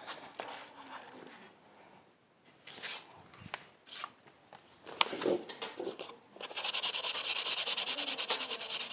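Light clicks and knocks of small starter-motor parts being handled. Then, from about six and a half seconds in, a rapid, even, rhythmic scraping, loud and hissy, like abrasive rubbed quickly back and forth over a starter-motor part.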